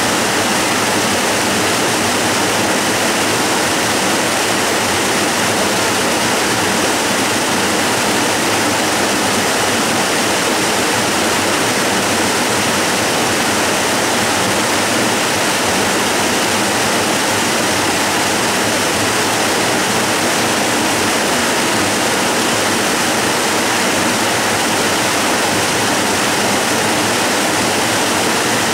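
Waterfall rushing steadily: a loud, even wash of falling water that never breaks or changes.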